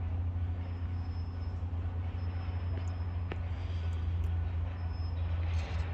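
Ford F-150 5.4-litre V8 running steadily at idle, with a single sharp click a little past halfway. The engine has code P0016 (cam/crank correlation, bank 1) and a noise the inspector takes for valve-train noise up top around cylinders 2 and 3.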